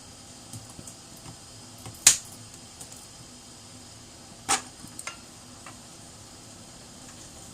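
Kitchen cookware and utensils knocking: two sharp clacks about two and a half seconds apart, with a few lighter ticks, over a steady hiss.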